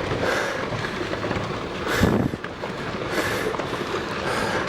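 Rockfall on a volcano slope: rocks tumbling and clattering down in a steady noisy rush, with one sharp crack about two seconds in.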